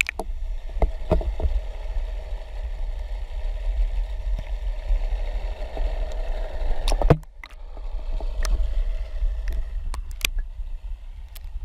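Underwater sound picked up through a GoPro's waterproof housing: a low rumble of water moving past the camera with a faint steady hum, broken by scattered sharp clicks and knocks. The sound drops out briefly about seven seconds in, then resumes.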